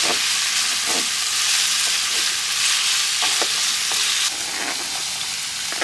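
Minced beef sizzling as it fries in a non-stick frying pan, with a wooden spoon scraping and tapping as it stirs and breaks up the meat. The sizzle eases a little about four seconds in.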